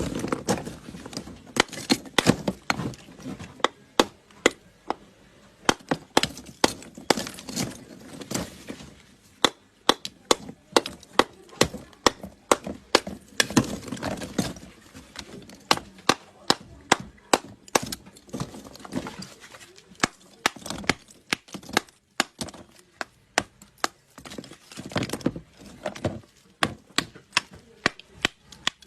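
A hammer striking and splitting lumps of natural chalk and clay: dozens of sharp cracks at an irregular pace, about two a second, with crumbling between the blows.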